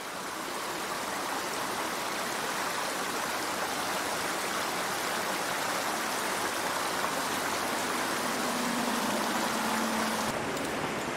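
Steady rush of flowing water over rocks, fading in at the start and running evenly throughout.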